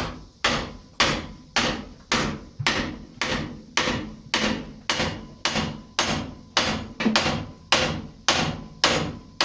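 Hammer blows on hot steel on an anvil, forging a knife blade: about eighteen steady, evenly paced strikes, a little under two a second, each ringing briefly.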